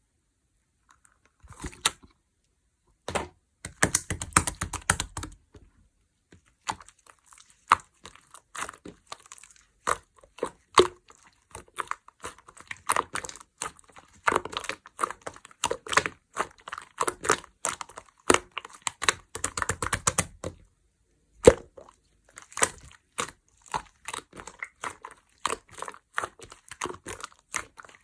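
Hands squishing and poking a soft orange pongdang slime: a steady run of wet clicks and pops, with denser bursts of quick crackling squelches now and then.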